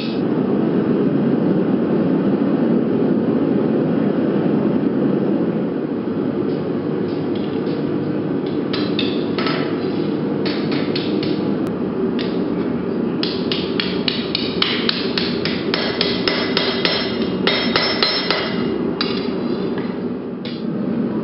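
Hand hammer blows on hot steel on an anvil, in quick runs of about four strikes a second, starting about six seconds in and thinning out near the end. Under them, the forge's burner gives a steady rushing noise.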